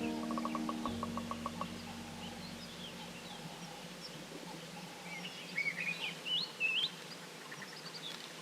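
Wild birds calling and chirping in the bush, with a louder warbling run of calls about five to seven seconds in. A low steady hum and a quick run of ticks fade out over the first couple of seconds.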